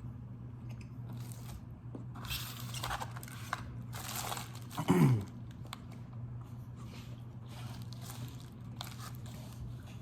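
Close-up chewing and crunching of a mouthful of bacon cheeseburger, in several bursts. About five seconds in comes a short falling 'mm' from the eater, the loudest sound, over a steady low hum.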